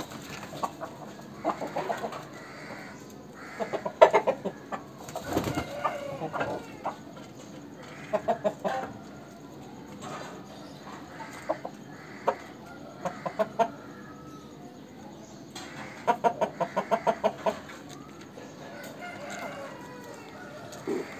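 Aseel chickens clucking in short runs of quick clucks every few seconds, with one longer run of about ten rapid clucks about three-quarters of the way through.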